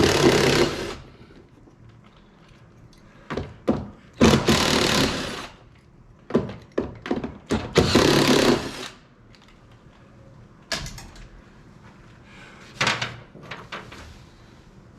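Knocks, clicks and clatter of tools and parts being worked on a car's heater box during removal, with three noisy bursts of about a second each, at the start, around four seconds in and around eight seconds in.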